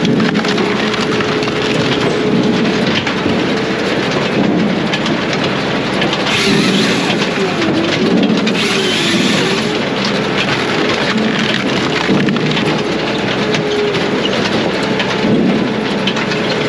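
Brute Force USA 18-24HD diesel firewood processor running loud and steady while processing hardwood logs, its engine and machinery noise continuous with a crackle of wood being worked. The machine's steady hum dips in pitch twice near the middle, as if briefly pulled down under load.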